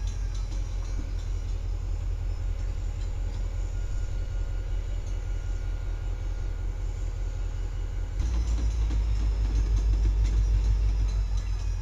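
Freight cars of a rail train loaded with quarter-mile continuous welded rail rolling slowly past: a steady low rumble of wheels on track, with faint thin high tones above it. The rumble steps up abruptly about eight seconds in.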